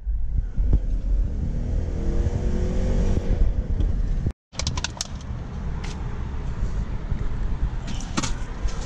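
GMC Denali's V8 pulling under hard acceleration, heard from inside the cab, its pitch rising as it revs toward about 3,300 rpm; it cuts off abruptly about four and a half seconds in. Then a few knocks and thuds as a tyre is shifted on the back seat.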